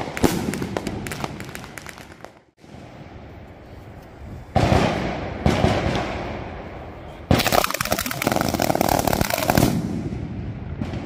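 Fireworks going off: a sharp bang with a rapid crackle that fades at the start, then firecrackers on the ground crackling in dense, rapid bursts with a few louder bangs. The loudest, thickest crackling comes about seven seconds in and dies away near the end.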